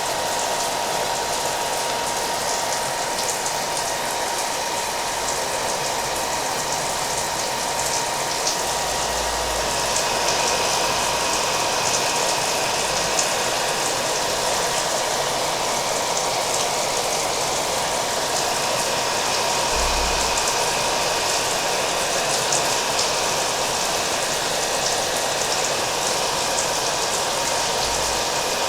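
Hair dryer running steadily with an even whine near 1 kHz, mixed with steady rain pattering.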